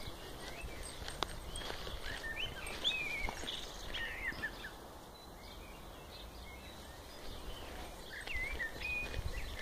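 Birds singing short chirping phrases, a cluster in the first half and a few more near the end, over steady outdoor background noise with a few soft clicks.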